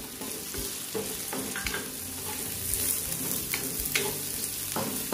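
Sliced aromatics and whole chilies sizzling in oil in a wok as a wooden spatula stirs them. The spatula scrapes and taps on the pan now and then, a few times a second or so apart.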